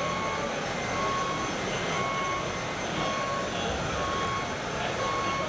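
Reversing beeper from the sound module of a 1:14-scale RC Volvo truck, sounding short, steady beeps about once a second as the truck backs up. The beeps sit over a steady background noise.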